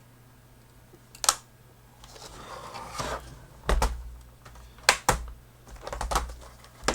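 Sharp plastic clicks and knocks from a laptop's case being handled, about six over a few seconds, with dull thuds and a short rustle among them.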